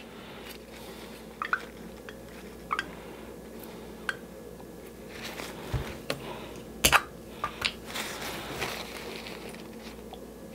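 Scattered light clicks and taps of a plastic bottle and its screw cap being handled on a tabletop, with soft rustling of a paper napkin. The sharpest click comes about seven seconds in.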